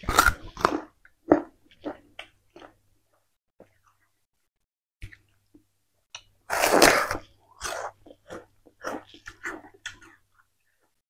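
Peeled raw sugarcane bitten and chewed: a crunching bite at the start, then scattered chewing crunches, with a louder, longer crunch about six and a half seconds in.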